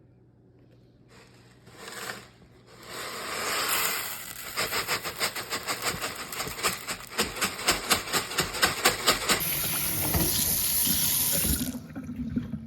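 Running water, with a fast rhythmic splashing through the middle, then a harder steady hiss that cuts off suddenly near the end.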